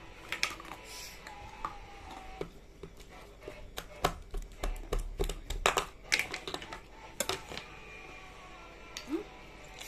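Eating sounds at a table: a scattering of sharp clicks and taps from cutlery on plates and chewing, thickest about four to six seconds in, with a low bump underneath.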